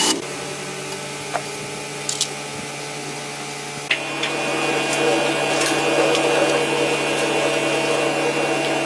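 A power tool's electric motor running at a steady pitch, becoming louder and rougher about four seconds in.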